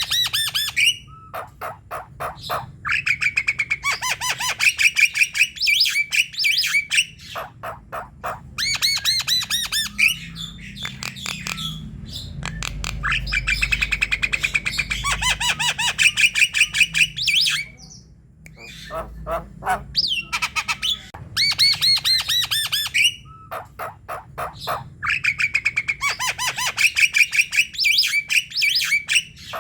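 Javan myna singing vigorously: phrases of a few seconds, each a rapid run of harsh clicks and chatter mixed with squeaky, bending whistles, with short pauses between them.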